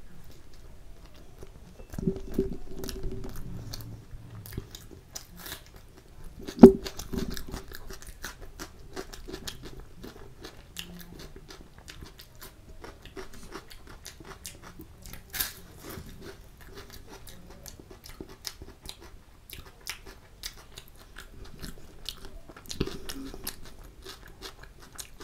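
Close-miked eating of chole kulche (spiced chickpeas with kulcha flatbread) and a raw cucumber slice: wet chewing and biting with many small crunches and mouth clicks. The loudest is a single sharp click about six and a half seconds in.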